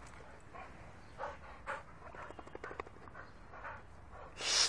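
Pit bulls making short, soft whines and grunts up close, with a quick run of clicks about halfway through. Near the end comes a short, loud, breathy burst.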